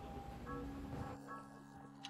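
Quiet background music: a held low tone with short repeated higher notes.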